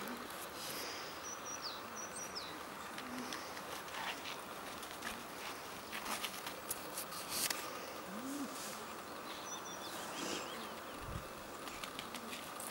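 Quiet outdoor ambience: a steady faint background hum with a few brief high bird chirps, once about a second in and again about two-thirds through, and scattered light scuffs.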